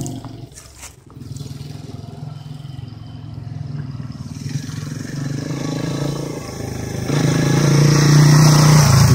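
Dirt bike engine running at low speed as the bike approaches, growing steadily louder and loudest near the end as it rides up close.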